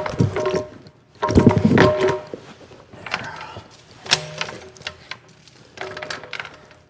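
Steel chain clanking and rattling in bursts as it is fed through a tractor wheel, the metal ringing after each clatter.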